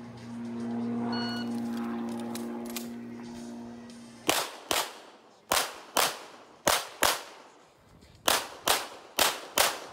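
CZ Shadow 2 9 mm pistol fired in quick pairs, ten shots as five double-taps, starting about four seconds in.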